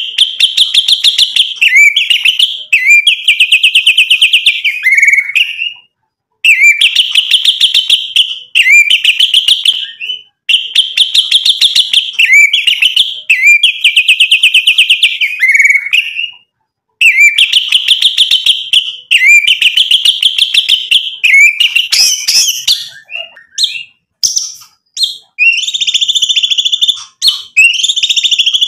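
White-rumped shama (murai batu) singing loudly: phrase after phrase of rapid-fire notes, each a second or two long, repeated with short breaks. Toward the end the phrases become more varied and reach higher.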